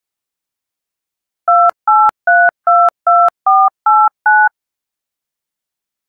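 A sequence of eight DTMF touch-tone dual-tone beeps, about three a second, starting about one and a half seconds in, sounded as a signalling tone sequence in an Emergency Alert System broadcast.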